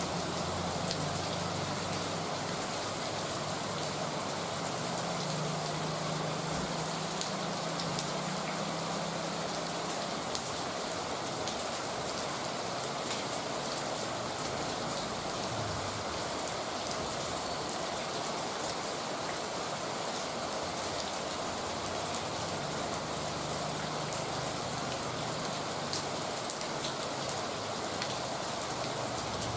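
Heavy rain falling steadily: a dense, even hiss with scattered drop ticks. A faint low hum comes and goes underneath.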